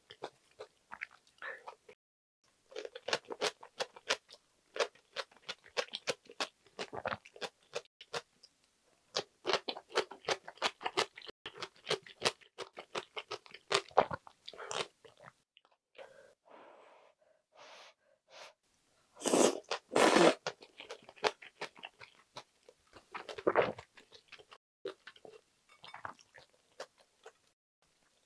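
Close-miked chewing of a mouthful of budae-jjigae: rapid wet, crunchy mouth clicks in long runs, with two louder, longer bursts about two-thirds of the way through.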